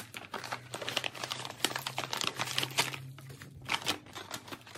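Brown paper bag and its wrapping crinkling and rustling as they are handled and opened: a dense run of crackles that thins to a few scattered clicks after about three and a half seconds.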